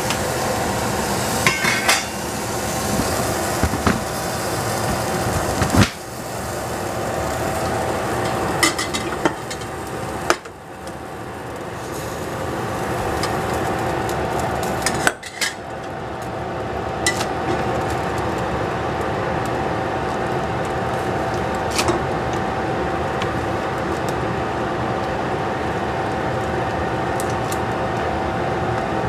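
Scattered metal clinks and knocks of chopsticks and a pot lid against a stainless steel pot while noodles are lifted out of boiling water, over a steady rushing hiss.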